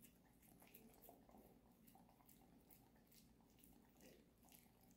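A husky faintly chewing and mouthing a dumpling, soft irregular clicks and smacks.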